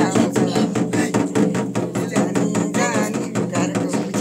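Music with a fast, steady percussion beat over sustained low tones, and a short wavering vocal line about three seconds in.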